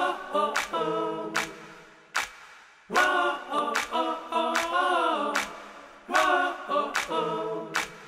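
An a cappella vocal intro jingle: a short sung phrase repeats about every three seconds over a sharp click, like a finger snap, on a steady beat.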